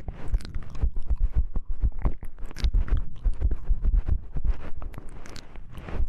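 Close-microphone ASMR clicking and tapping: dense, irregular crisp clicks mixed with soft low thumps.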